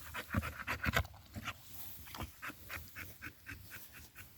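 A dog panting fast after a long walk, short breaths at about three a second.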